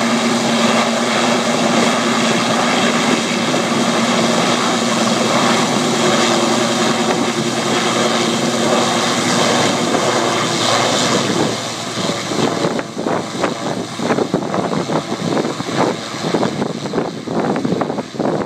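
Sikorsky S-76B twin-turbine helicopter running loud overhead while hovering and lifting a slung load, with a steady low hum under the rotor noise. About twelve seconds in the steady sound turns uneven and gusty as the helicopter climbs away.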